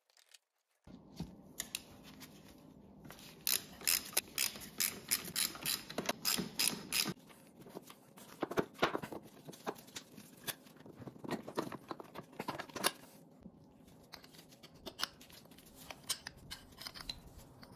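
Metal parts of a Husqvarna WR125 two-stroke engine's top end being handled: sharp clicks and light scrapes as the cylinder is worked up off its studs and the piston is handled. A quick run of clicks comes a few seconds in, then the clicks come more sparsely.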